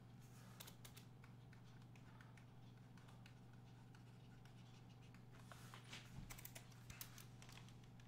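Near silence: room tone with a low steady hum and faint scattered clicks and taps from handwriting with a pen-input device, a little busier near the end.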